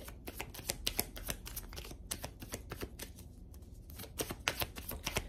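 A deck of tarot cards being shuffled by hand: a quick, irregular run of soft card clicks and slaps, thinning out briefly a little past the middle.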